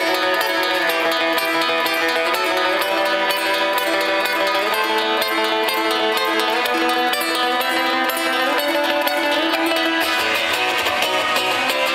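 Electric guitar played solo through a concert PA: long, held notes that step to new pitches every few seconds, with no drums or bass under them.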